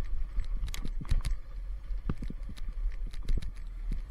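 Motorcycle ridden over a rough dirt track: a steady low rumble with irregular sharp knocks and rattles as the bike jolts over bumps.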